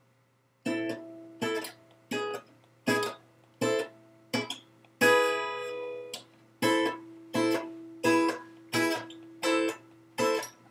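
Acoustic guitar played solo, chords strummed in a steady rhythm of roughly one stroke every three-quarters of a second, starting just under a second in, with one chord left to ring about halfway through.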